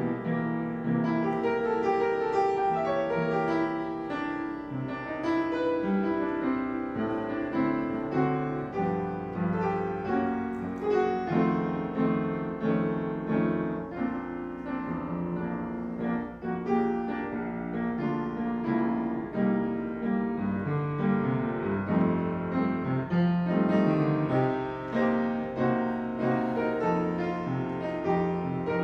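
Piano music: an unbroken instrumental piece of held chords and moving melody notes.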